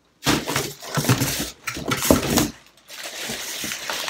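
Cardboard box and plastic wrapping being handled and moved about: rustling and scraping, loudest in the first half.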